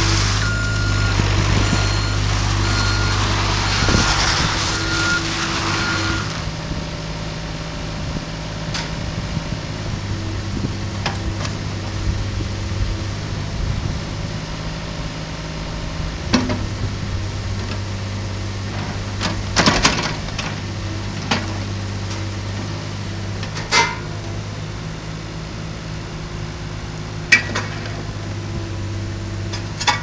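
Caterpillar 303.5 mini excavator's diesel engine running steadily as the machine is worked. A travel alarm beeps about once a second for the first six seconds, then stops, and a few sharp clanks come later on.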